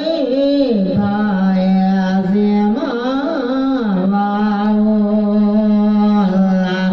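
A man's voice chanting an Isan melodic sermon (thet lae), drawing out a wordless melisma: long held notes with wavering, swooping ornaments at the start and again about three seconds in.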